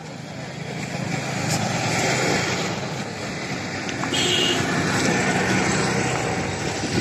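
Road traffic on a city street: motor vehicles passing by in a steady rush that swells twice, about two seconds in and again from about four to six seconds.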